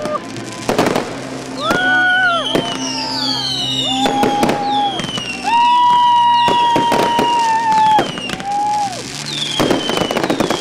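A fireworks display: aerial shells and ground pyrotechnics going off in a rapid, irregular series of loud bangs and crackles.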